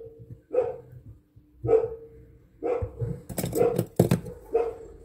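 A dog barking repeatedly, about one bark a second. A short patch of sharp clicks comes about three seconds in.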